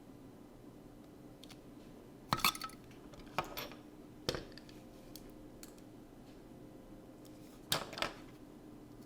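Metal tweezers clinking and tapping against hard surfaces in a few short clusters of sharp clicks, about two, three and a half, four and a half, and eight seconds in, over a faint steady hum.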